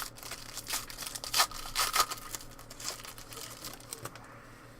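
Foil trading-card pack wrapper being torn open and crinkled: a run of irregular crackling rustles that die down about four seconds in.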